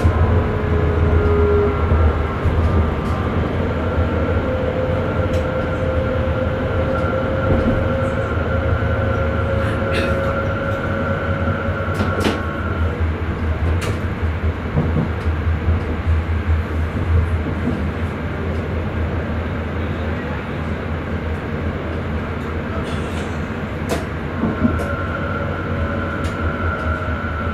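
Electric Sprinter train running, heard from the driver's cab: a steady low rumble of wheels on rail. Over the first half a faint whine slowly rises in pitch. A higher steady tone comes and goes, and there are a few sharp clicks.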